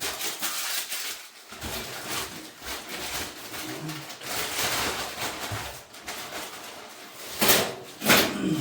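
Handling noise from work on the washer: steady rustling and scraping, with two louder scrapes near the end.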